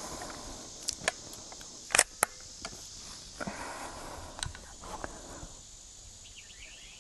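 Seneca Dragon Claw .50 caliber PCP air rifle being cocked and loaded by hand: a string of sharp clicks and clacks, the loudest pair about two seconds in, then shorter handling noises. A steady high buzz of insects runs underneath.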